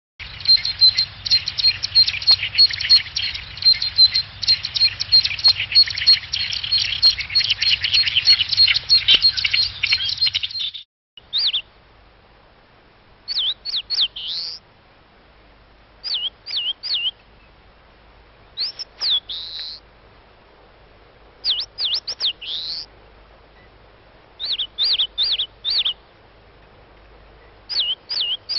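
Wild birdsong: a dense run of rapid high chattering notes that stops abruptly about eleven seconds in, followed by a different bird singing short phrases of three to five sharp, high slurred whistles every couple of seconds.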